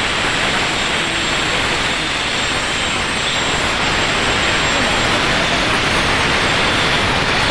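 Wind buffeting a phone microphone: a steady, loud rushing noise with an uneven low rumble and no clear pitch.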